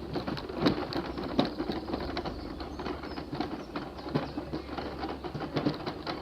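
Irregular rattling and clicking of wheels rolling over a rough surface, over a steady low hum.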